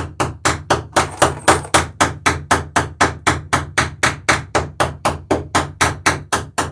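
Hammer blows in a quick, even rhythm of about four a second, riveting the plywood planking (strakes) of a wooden dory.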